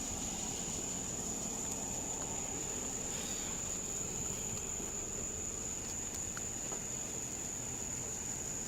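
Steady high-pitched insect trill over a low, even background rumble.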